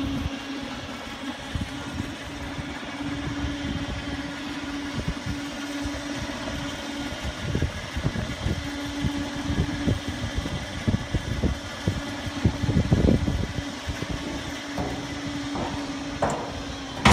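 Truck-mounted crane running with a steady hum as it lowers a galvanized steel vehicle chassis onto a trailer; the hum breaks off briefly about seven seconds in, then resumes. Irregular knocks and bumps run throughout, and there is a sharp clank near the end.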